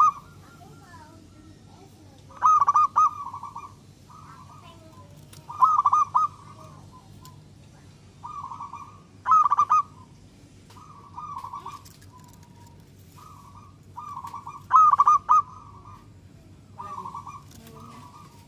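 Zebra dove (perkutut) cooing: short, rapid, rolling phrases, four loud ones a few seconds apart, with fainter coos of the same kind in between.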